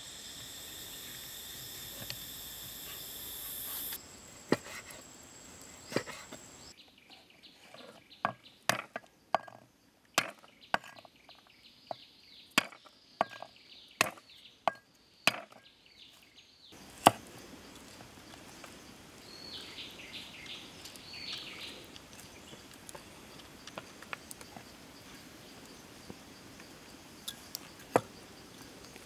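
Cleaver chopping raw chicken on a wooden cutting board. Sharp knocks of the blade come in a run of about two a second, then a few single chops.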